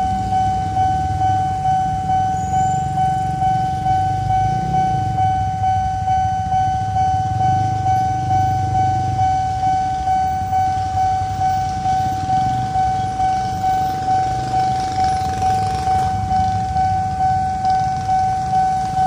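Railway level-crossing warning bell ringing on and on in a single clear tone, about two rings a second. Motorcycle engines run underneath.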